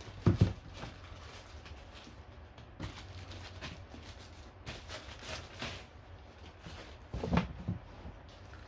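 Unpacking handling noise: plastic wrapping rustling and crinkling, with a pair of low thumps about half a second in and again near the end.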